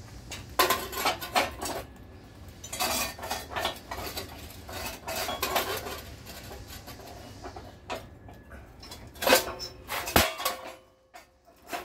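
A concrete brick paver clinking and scraping against the steel jaws of a manual paver splitter in several short bursts as it is set in place for an angle cut. About ten seconds in comes one sharp crack as the splitter's blade snaps the paver.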